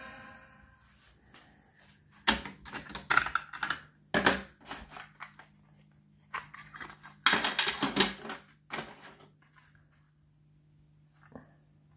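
Wega PSS 200C cassette deck being worked by hand: sharp clicks and short clattery bursts from its keys, eject door and a cassette being taken out and handled, with a faint steady hum underneath.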